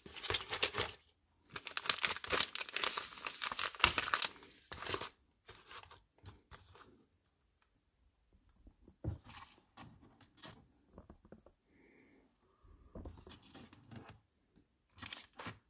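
Crinkling and rustling of foil tea sachets being handled and packed into a cardboard box, loudest in the first few seconds. Fainter taps and scrapes of cardboard follow as the box is slid into place.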